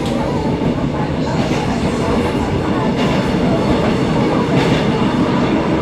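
V-train tourist train running along the track: a steady, loud rumble of wheels on rails, with a few faint, irregular clicks from the rail joints.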